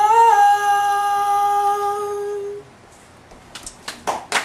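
A man's unaccompanied singing voice holding one long, steady final note for about two and a half seconds. After a short pause, the first scattered claps of applause start near the end.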